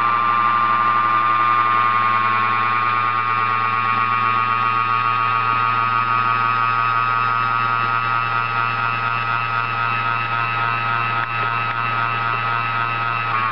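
Levin watchmaker's lathe running under its belt-driven C&E Marshall Watch-Craft motor: a steady high whine over a low electric hum, easing slightly lower in pitch during the first few seconds and then holding.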